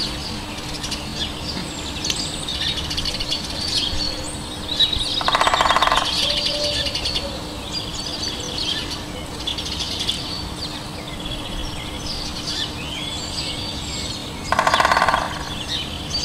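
Woodland songbirds chirping and trilling, with two louder, harsh buzzy calls, one about five seconds in and one near the end, over a faint steady hum.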